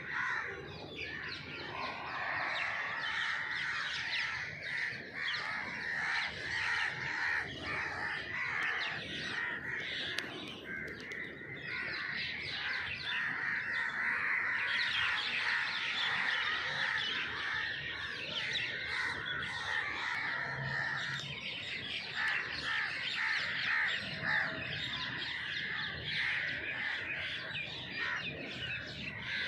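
Dense chorus of many birds calling at once, a continuous overlapping chatter of short calls.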